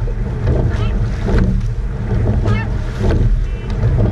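Rowing eight under way at race pace: wind buffeting the microphone over water rushing past the hull, with several sharp knocks from the oars working in their oarlocks.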